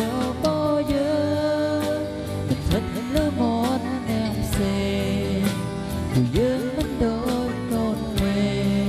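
Music: a song with a singing voice over a steady drum beat.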